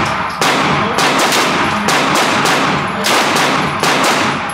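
Several 9mm pistol shots from a Springfield Echelon, fired in steady succession. Each crack rings on in the echo of an indoor range.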